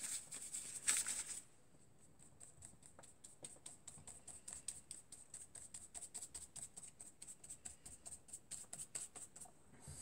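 Dry paintbrush dabbing acrylic paint onto paper in quick light taps, about five a second, stippling in grass texture. It opens with a short scrubbing rustle as the brush is worked in the paint.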